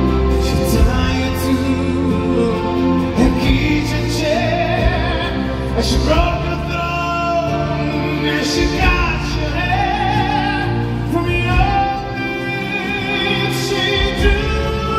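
A male tenor singing a slow ballad solo through a microphone, long held notes with vibrato, over soft sustained instrumental accompaniment, heard live in a theatre.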